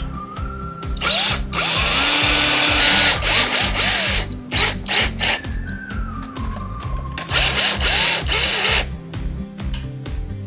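Cordless drill driving mounting screws into a garage door sensor bracket, running in several bursts, the longest about two seconds near the start and another near the end. Background music plays underneath.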